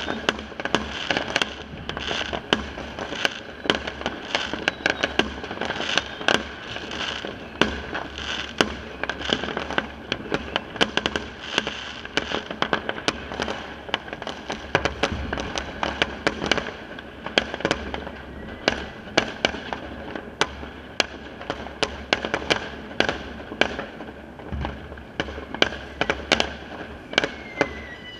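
Consumer fireworks going off all over a neighbourhood: a dense, unbroken stream of bangs and firecracker pops at many distances, with crackling in between.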